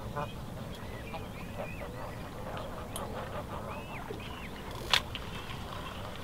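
Waterfowl calling on the reservoir: a short pulsed call just after the start, then thin rising and falling bird calls scattered through, over a steady low background. A single sharp click about five seconds in is the loudest sound.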